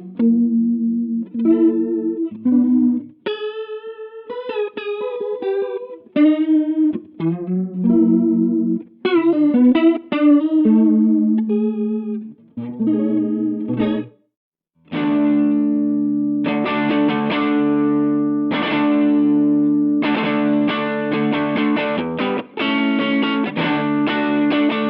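Electric guitar played through a Mooer Ensemble King chorus pedal, the notes wavering in pitch with the chorus warble. Picked single notes and arpeggios come first; after a brief stop about 14 seconds in, full chords are struck and left ringing, re-struck again and again.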